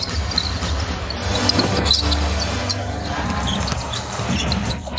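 Arena noise of a basketball game: the ball bouncing on the hardwood court under crowd noise, with short high sneaker squeaks scattered through it.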